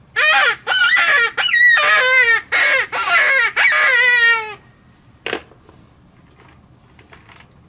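Fawn-in-distress predator call being blown by mouth: a run of about seven loud, high, wailing bleats, the last one longest and falling in pitch. A single short click follows about a second later.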